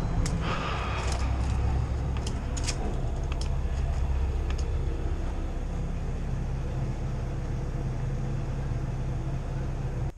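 An engine running steadily, a low rumble, with a few light clicks in the first couple of seconds.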